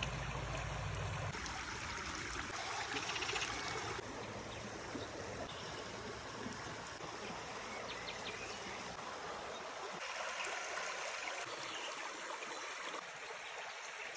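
Running water of a stream, a steady rushing hiss that shifts abruptly in tone and level a few times.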